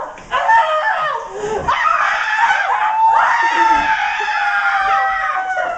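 Several young women screaming at once, long overlapping high-pitched shrieks in mock panic.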